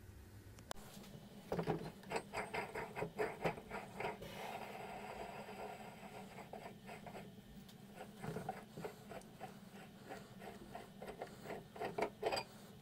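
Red clamp unscrewed up the threaded center shaft of a Pittsburgh Automotive mini tire changer: a quick run of scraping clicks, then fainter scratching, and another flurry of clicks near the end.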